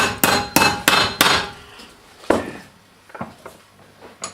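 Hammer blows on sheet metal, sharp and quick at about three a second, stopping after about a second and a half. One more blow comes about a second later, then a faint tap.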